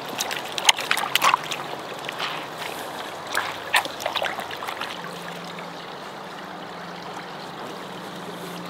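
Clothes being kneaded and scrubbed by hand in a small collapsible bucket of soapy water: irregular splashing and sloshing for the first few seconds, then softer, steadier water sounds as a garment is wrung out over the bucket near the end.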